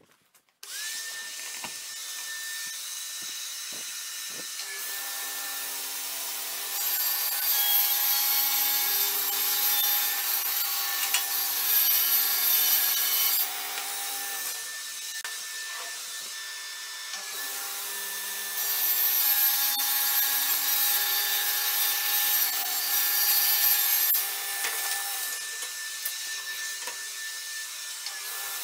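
Kity table saw switched on just under a second in, its motor settling to a steady whine. It then rips a 12 mm board into strips in two long cuts, each several seconds, which are louder than the free-running blade.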